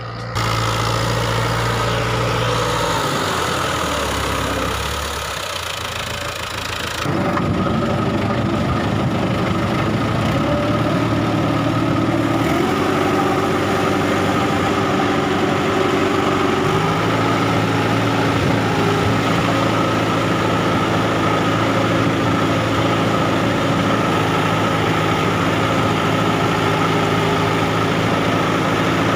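New Holland Dabang 85 hp tractor engine running steadily under load, pulling a puddler through a flooded paddy field. Its note changes abruptly about seven seconds in and shifts again a couple of times after.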